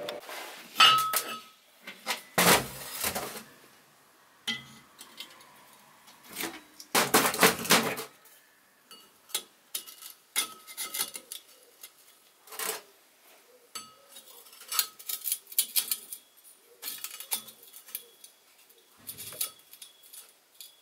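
Steel tube and a cast-iron brake disc being handled and positioned on a steel bench: scattered metallic clinks and knocks, with two louder clatters in the first half and lighter ringing clinks after.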